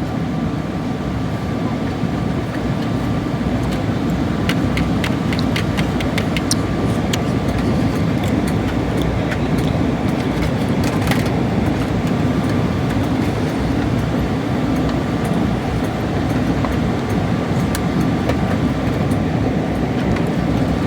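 Steady jet airliner cabin noise: the even rumble and hiss of engines and airflow heard inside the cabin in flight, with a few light clicks and taps.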